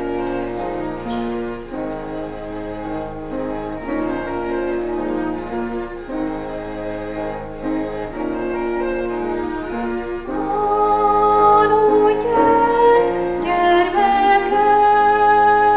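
A small string ensemble, including a double bass, plays slow sustained chords. About ten seconds in, a woman's solo voice enters over them, singing a louder, wavering melodic line.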